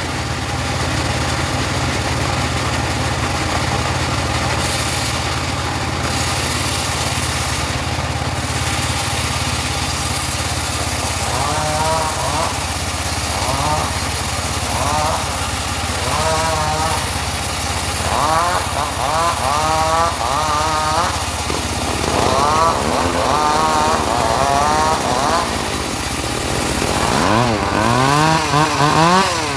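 Engine-driven mobile sawmill running steadily while its saw cuts teak. From about halfway through, a wavering whine rises and falls above the engine hum as the blade works through the wood.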